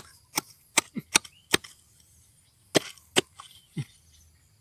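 A small hand tool digging and scraping into loose, gritty soil: about nine short, sharp scraping strokes, a quick run of them in the first second and a half, a pause, then a few more about three seconds in.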